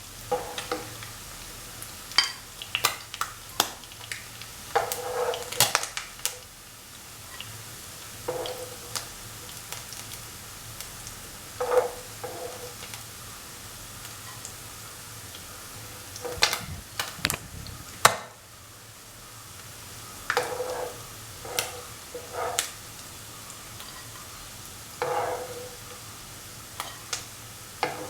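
Anchovies sizzling in hot oil in a frying pan, with a metal spatula repeatedly knocking and scraping against the pan as the nearly browned fish are lifted out. Several short clicks and knocks, some with a brief ring, over a steady sizzle.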